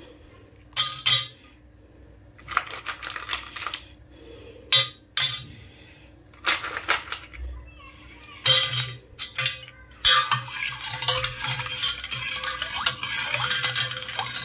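Ice cubes dropped into a steel bowl of sharbat, with several separate clinks against the metal; from about ten seconds in, a steel spoon stirs the drink continuously, clattering against the bowl and the ice.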